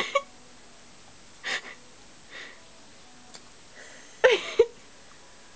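A person's short, breathy exhales, four or so, with the loudest pair about four seconds in. A faint click comes a little before it.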